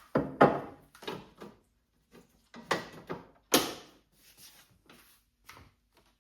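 A string of clunks and knocks from kitchen equipment being handled while making a latte. The loudest come about half a second in and about three and a half seconds in, with smaller taps between.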